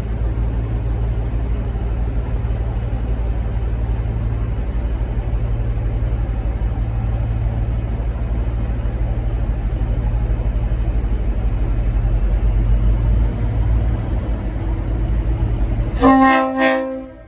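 V/Line N class diesel-electric locomotive running with a steady low rumble as it pulls out. About sixteen seconds in, its Leslie RS5T five-chime air horn sounds a loud chord for about a second, then cuts off abruptly.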